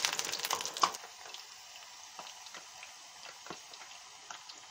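Raw potato sticks frying in sunflower oil heated to 175 °C in a small electric deep fryer's basket, the potatoes' moisture boiling off as they start to cook. A loud sizzle thick with crackles for about the first second settles to a quieter steady crackle with occasional pops.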